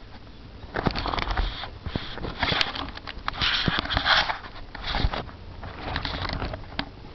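Old Minoura bicycle trainer running, a rough rushing noise that swells and fades in uneven surges about once a second, with scattered sharp clicks.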